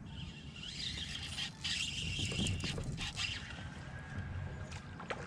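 Fishing reel being cranked during a crankbait retrieve, a whirring that rises and falls in pitch with the cranking and stops about three and a half seconds in, with a few light clicks.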